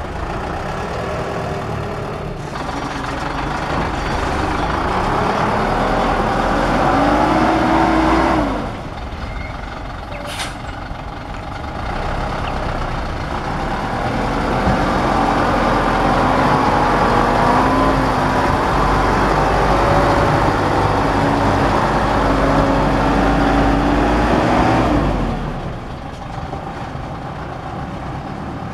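Diesel engine of a THACO dump truck revving hard in two long stretches, the revs climbing and holding, then dropping back sharply about eight seconds in and again near the end. A brief hiss about ten seconds in.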